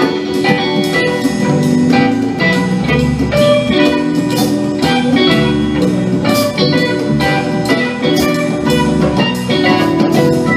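Live rock band playing an instrumental jam: electric guitars, bass guitar, keyboards and a drum kit, loud and steady.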